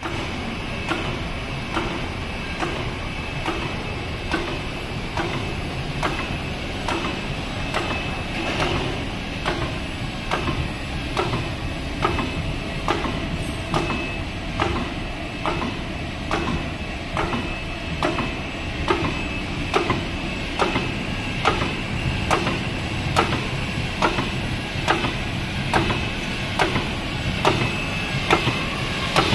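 Full rotary die cutting machine running: a steady mechanical hum with a thin high whine, and a regular knock about three times every two seconds as the printed label web is cut.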